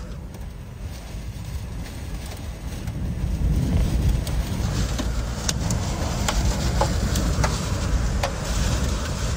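Tornado winds heard from inside a vehicle cabin: a low rushing roar that builds from about three seconds in and stays strong, with scattered sharp ticks against the vehicle.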